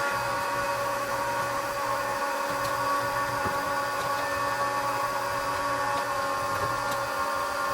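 Milwaukee battery-powered pump running steadily with a constant motor hum, draining the old water heater tank.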